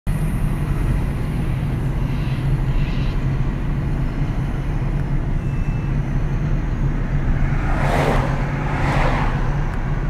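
Steady low engine rumble with two vehicles passing by about eight and nine seconds in.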